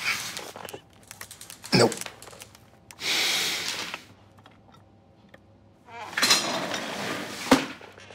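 Sparse sounds in a quiet room: a sharp knock about two seconds in, a breathy hiss lasting about a second, then another breathy hiss that ends in a second sharp knock near the end.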